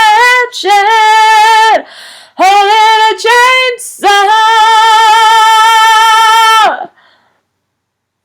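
A woman singing solo, with no instruments heard; the phrase ends on a long held note that stops about seven seconds in.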